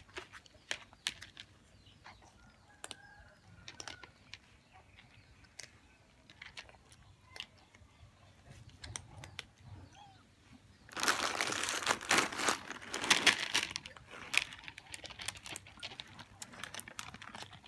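Cats eating dry kibble from a tray, with scattered small crunches and clicks. About eleven seconds in comes a loud crinkling rustle lasting about three seconds.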